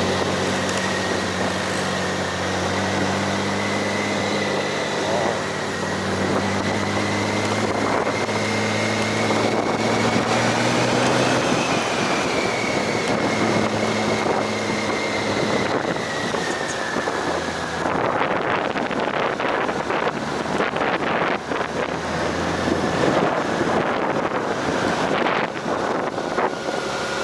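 A vehicle engine running steadily on the move, with a high whine that rises a little and then falls back, and wind noise on the microphone. From about two-thirds of the way in, rapid irregular crackles and knocks join it.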